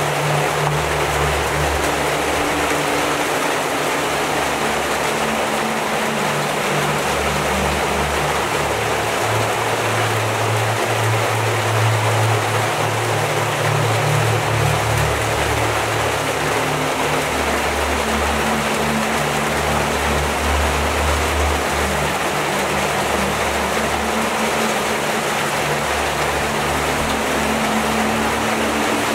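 Heavy rain pouring steadily onto leaves and standing water, a dense even hiss of drops. Underneath are low, sustained music notes that change every few seconds.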